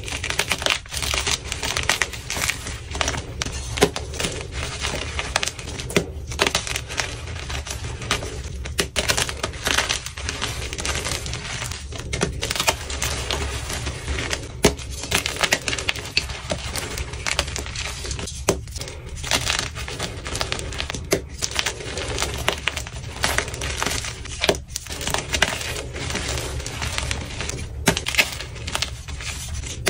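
Fresh white gym chalk blocks crushed and crumbled between the fingers: a dense, irregular crunching and crackling full of sharp little snaps as chunks break and powder sifts down.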